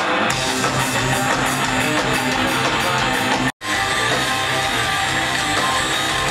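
Rock band playing live, loud, with electric guitars to the fore. The sound cuts out for a split second about halfway through, then the music resumes.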